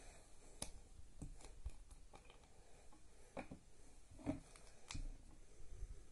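Faint, scattered clicks and taps of hands handling a small plastic dropper bottle and a YuXin Little Magic speedcube, as a layer is turned open to drip lube in.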